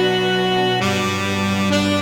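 Background music: sustained reedy instrumental chords held about a second each, changing about a second in.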